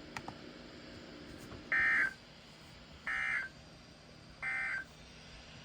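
NOAA weather radio sending three short, identical buzzing data bursts about a second and a half apart: the EAS/SAME end-of-message (EOM) tones that mark the end of an alert.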